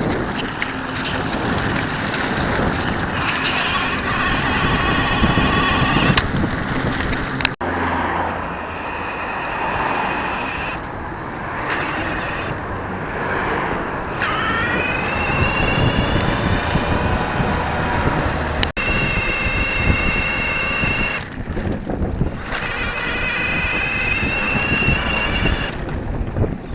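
Electric bike being ridden: wind and tyre rush with the electric motor whining, its whine rising in pitch as the bike speeds up about halfway through. The sound breaks off abruptly twice.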